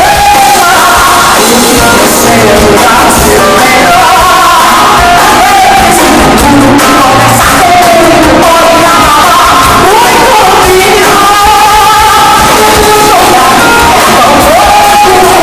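Woman singing a song live into a microphone, backed by a band with upright bass and drums, recorded very loud through a phone's microphone.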